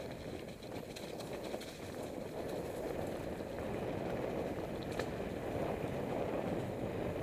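Mountain bike rolling down a dirt forest trail: a steady rumble of tyres over dirt and leaves, with a few sharp clicks and rattles from the bike.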